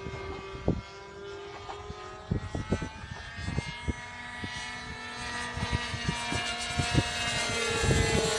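Engines of two RC model sport planes droning in flight, their pitches drifting slowly as they move about, with the sound growing louder near the end. Short low thumps are scattered through it.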